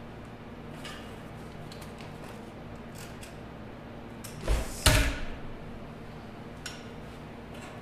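Steel plate knocking against a steel-tube ATV frame as a 3 mm motor mounting plate is fitted in place: a few light clicks, then two loud metal clanks close together a little past halfway, over a steady low hum.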